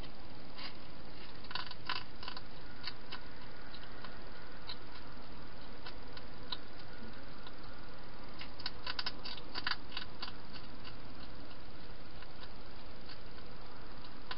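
Hedgehog eating from a bowl: quick runs of small clicks and crunches, one cluster about two seconds in and a longer one about nine seconds in, over a steady background hiss.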